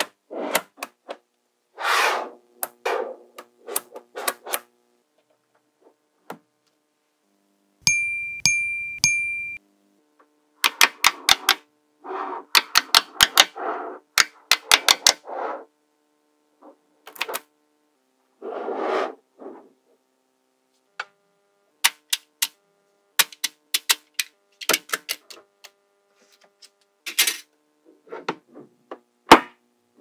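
Small magnetic balls clicking and snapping together as sheets and strips of them are placed, rolled and pressed into shape, in quick runs of sharp clicks and short rattles. A brief high ringing tone sounds about eight seconds in.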